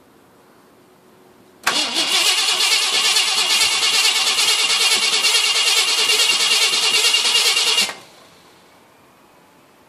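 Cold start of a 1966 Ford F-100's 352 FE V8 after sitting about two years: the engine is turned over with a fine, even rhythm for about six seconds, starting suddenly and then cutting off suddenly.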